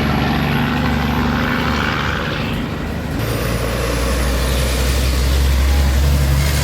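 Road traffic passing close by: vehicle engines running, easing off briefly about three seconds in, then a deeper engine sound builds and grows louder near the end.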